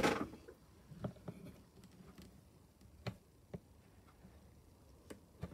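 Faint, scattered small clicks and taps, about six spread over a few seconds, as a steel bezel roller is set against a fine-silver bezel on a wooden bench pin.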